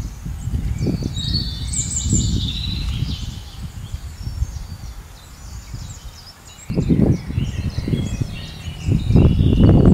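Birds chirping and calling over an uneven low rumble, which fades in the middle and comes back louder about two-thirds of the way through.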